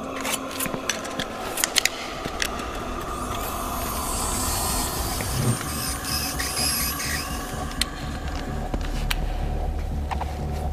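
Film sound effects: a run of sharp mechanical clicks, then a hiss lasting a few seconds, and a low rumble that swells near the end.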